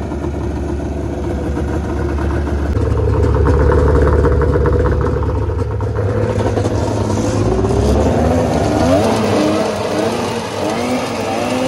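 2000 Arctic Cat ZRT 600 snowmobile's two-stroke triple being warmed up after a cold start: it runs steadily, holds higher revs for a few seconds, eases back, then is blipped up and down several times near the end.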